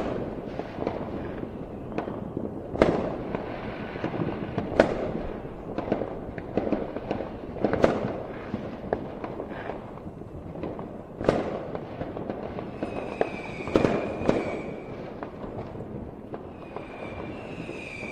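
Fireworks going off: sharp bangs at irregular intervals, a few seconds apart, with smaller pops between them. High whistles falling slightly in pitch come in about two-thirds of the way through and again near the end.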